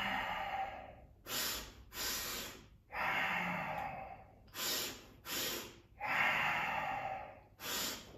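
A man doing cobra breathing: a double, sharp inhale through the nose, two short sniffs about half a second apart, followed by a longer exhale, repeated about every three seconds, three rounds.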